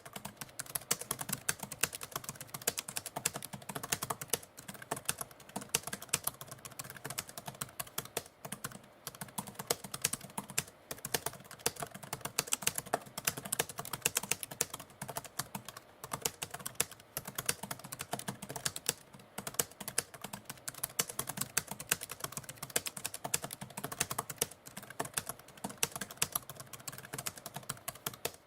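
Typewriter being typed on: a fast, uneven run of key clicks with short pauses every few seconds.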